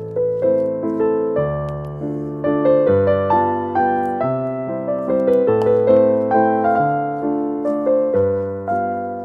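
Background piano music: a gentle melody of struck notes, each fading after it is played.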